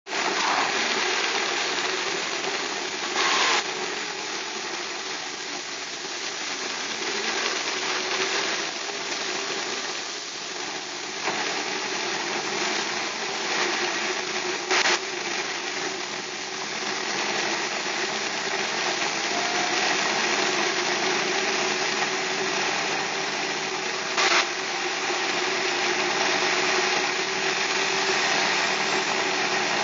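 Steady road noise heard from inside a car driving on a rain-wet highway: tyre rush and rain on the car over a low engine hum. Three brief louder knocks stand out, a few seconds in, about halfway and near the end.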